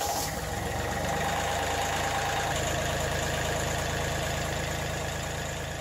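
Kioti CK3510 tractor's three-cylinder common-rail diesel engine running steadily at idle just after starting, with a newly fitted standard V-belt driving the fan and alternator.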